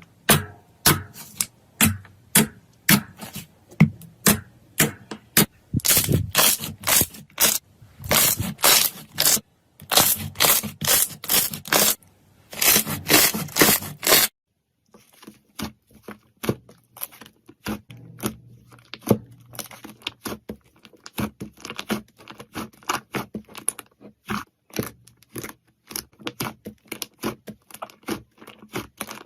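Slime squeezed and poked by hand, with runs of loud crackling and popping clicks. About halfway through there is a short break, then a second slime gives quieter, finer, faster crackles.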